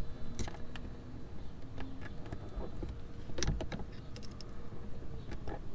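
Scattered small clicks and knocks from hand tools working a plastic fender pin out of a Jeep fender, with a sharper click about three and a half seconds in.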